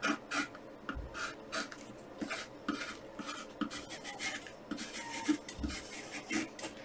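Wooden pencil writing on graph paper: faint, irregular short strokes, several a second, as lines are drawn.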